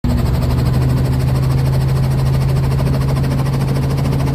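Robinson R44 Astro helicopter running on the ground, its six-cylinder Lycoming piston engine and rotor heard from inside the cabin: a loud, steady low drone with a fast, even pulsing.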